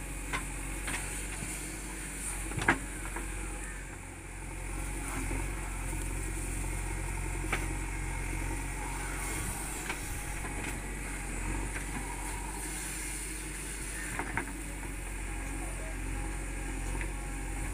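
JCB 3DX backhoe loader's diesel engine running steadily while it digs and dumps soil with its rear bucket, with a few short sharp knocks, the loudest about three seconds in.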